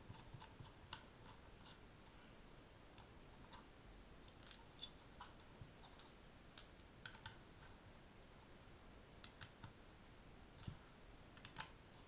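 Faint, scattered clicks and light metallic ticks of a small Phillips screwdriver turning screws into a metal laptop hard-drive caddy, with the drive being handled between turns.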